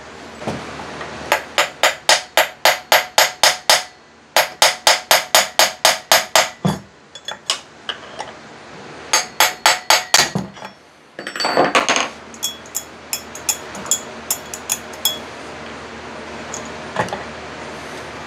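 Rapid hammer taps on metal, about five a second, in two runs of a dozen or so, then shorter bursts and scattered taps. The taps are meant to knock a chainsaw's flywheel loose from the crankshaft.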